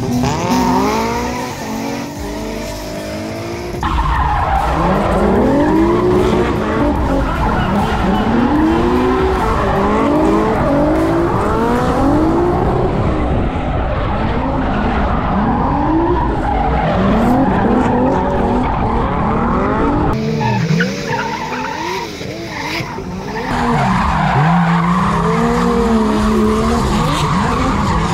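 Drift cars sliding around a course: engines revving up and falling back in repeated swells every second or two, over tyres squealing and scrubbing. The sound grows louder about four seconds in.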